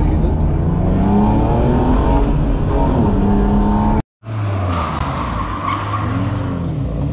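Rally car engine rising and falling in pitch with gear changes and throttle, over tyre noise; about four seconds in the sound cuts out abruptly at an edit and resumes on another stretch of driving, engine running under a steady rush of tyre noise.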